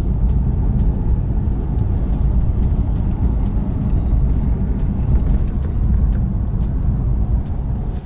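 Steady road noise and low engine rumble heard from inside the cabin of a car travelling at highway speed.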